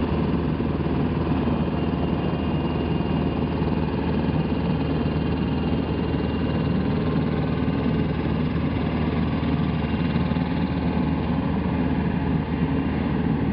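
Engine of a munitions-loading lift truck idling steadily, a continuous low hum.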